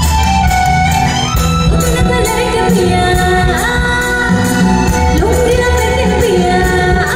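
Live band music: a woman singing lead over a steady drum beat and keyboards.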